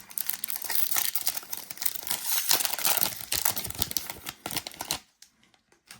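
Foil wrapper of a Donruss Optic football card pack crinkling and tearing as it is ripped open. The crackling stops abruptly about five seconds in.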